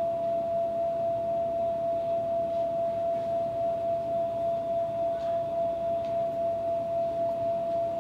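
A steady pure tone held at one unchanging pitch over a low hiss.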